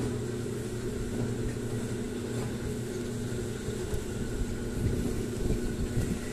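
Steady hum and rumble of a track-guided kiddie ride car running along its track.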